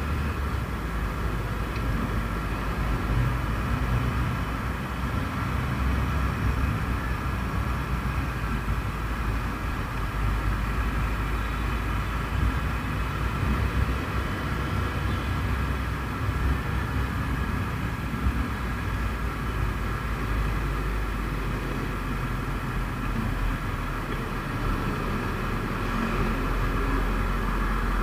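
Motorcycle ride noise in slow city traffic: the engine running steadily under a continuous low wind rumble on the microphone, with traffic around.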